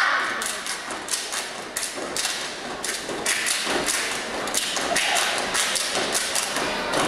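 Step team stomping in unison on a wooden stage floor: a steady rhythm of sharp thuds, about three a second.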